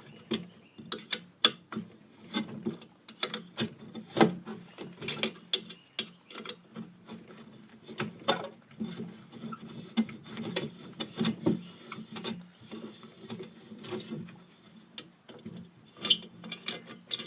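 A hand ratchet loosening steel bolts on a cast aluminium streetlight head: irregular clicking and metal knocks, with a brief sharper high-pitched rattle near the end.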